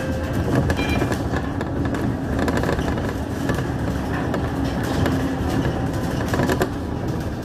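Inside a moving city bus: steady engine and road noise with frequent light rattles and clicks from the cabin.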